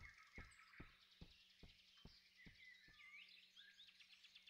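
Very faint forest ambience: scattered bird chirps and a high, buzzing insect trill, over a run of soft knocks about two and a half a second that die away about three seconds in.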